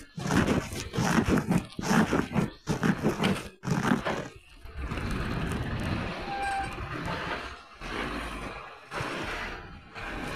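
Wind buffeting the microphone of a moving bicycle in choppy gusts for about the first four seconds. After that comes a steadier, quieter running noise, with a garbage truck's engine close ahead.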